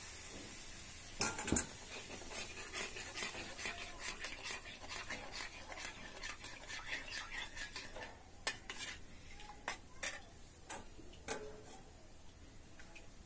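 A metal spatula and spoon scraping and clinking in a small steel kadhai as hot milk is stirred into caramelised sugar, with two sharp clanks a little over a second in. Quick repeated stirring strokes thin out into a few scattered taps after about eight seconds.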